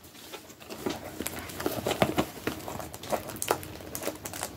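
Pokémon trading cards and packs being handled on a table: irregular light taps and clicks with a soft rustle.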